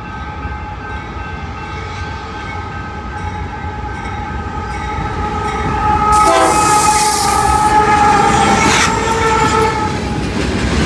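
BNSF freight locomotive's air horn sounding a long, steady chord as the train approaches the grade crossing. The pitch drops slightly as the locomotive passes about six seconds in, when the sound is loudest and a rush of noise comes with it. Near the end the horn stops and the freight cars are heard rolling past over the rails.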